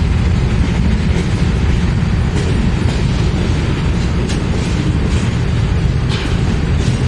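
Freight train passing close by: a BNSF diesel locomotive's engine running as it goes past, then double-stack intermodal well cars rolling by with a heavy steady rumble. Several sharp wheel clicks over the rail joints come in the second half.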